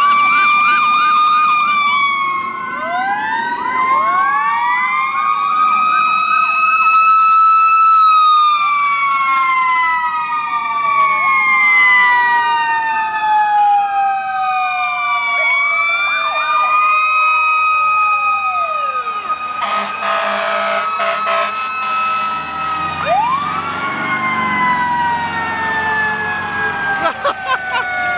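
Several fire truck sirens wailing at once, overlapping pitches rising and falling, some winding down slowly over several seconds. A horn blasts for about two seconds about two-thirds of the way through.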